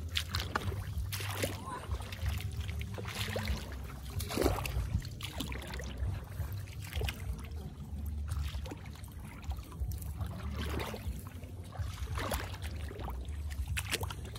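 Irregular sloshing and splashing in shallow, muddy rice-paddy water, over a steady low rumble.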